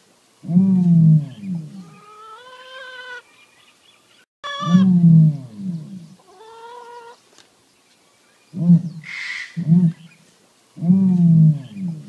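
Ostrich booming calls: a loop of deep, pitched calls, each followed by a quieter, higher, wavering call.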